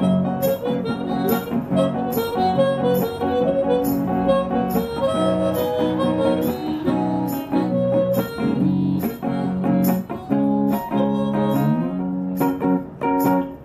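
A harmonica solo over strummed acoustic guitar, an instrumental break in a country-blues song, with a steady beat of about two strums a second; the playing ends on a final chord near the end.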